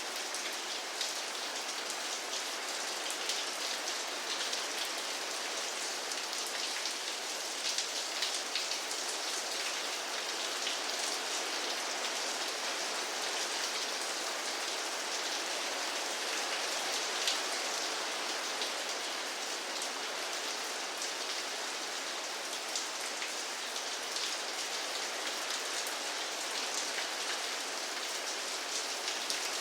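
Steady rain falling on a surface, a constant hiss dotted with fine drop ticks.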